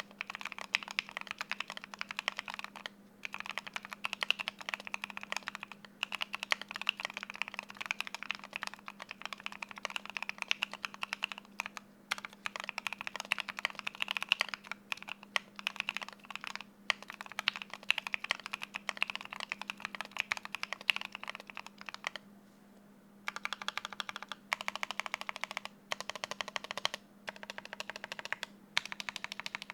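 Typing on a Keychron Q8 mechanical keyboard with Gateron North Pole linear switches, tape-modded and filled with polyfill, giving a muted, full sound. The clicks come in fast continuous runs with brief pauses, and near the end break into short separate bursts.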